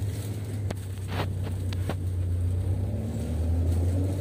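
Low, steady engine drone heard from inside a moving vehicle, growing slightly louder as it goes. In the first two seconds a few short knocks and rattles sound from the bumpy road.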